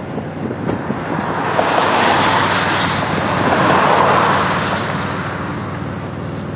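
A vehicle passing close by on the road: a rush of tyre and wind noise that swells about a second and a half in, is loudest around two and four seconds, then fades. A steady low rumble runs underneath.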